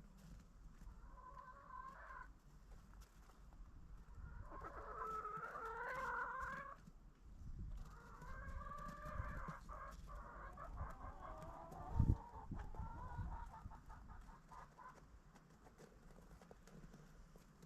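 Backyard chickens clucking and calling, with a run of drawn-out calls in the middle. A single low thump about twelve seconds in.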